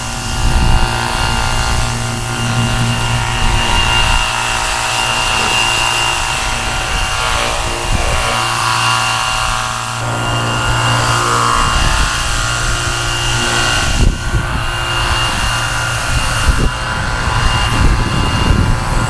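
Cordless battery-powered pressure washer running steadily: its motor-pump hums with a thin high whine over the hiss of the water jet.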